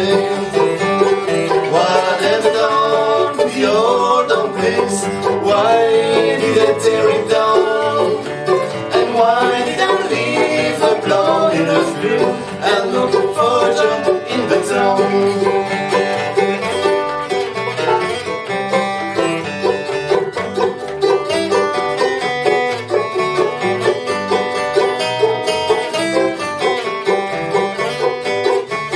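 Live acoustic bluegrass band playing an instrumental break, with banjo, mandolin and acoustic guitar picking together at a steady tempo.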